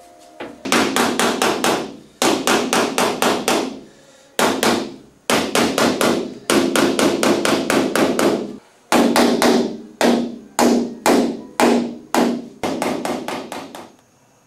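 Hammer striking a steel chasing punch on a copper sheet, tapping out texture in the copper relief. The blows come fast, about five a second, in runs with short pauses, and each one rings with a low metallic tone.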